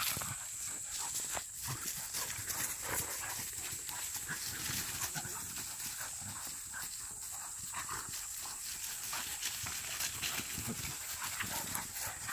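A pack of young Korean hunting-dog (dansung dog) puppies play-fighting: short dog noises and the repeated scuffle of paws through dry leaves, irregular and continuous.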